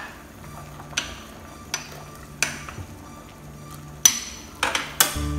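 About six sharp, irregularly spaced clicks and knocks of utensils against a plate as pieces of boiled chicken are piled onto it. A low steady hum starts near the end.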